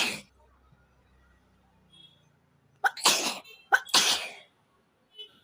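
A woman sneezing: the end of one sneeze right at the start, then two loud sneezes in quick succession about three seconds in, each a short sharp catch of breath followed by the noisy burst.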